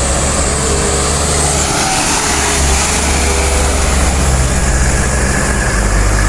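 Truck engine pulling up a steep climb, a steady low drone with road noise.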